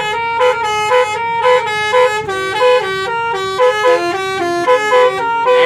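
Basuri telolet horn, a multi-tone musical vehicle horn, playing a fast tune of short stepped notes that repeats over and over.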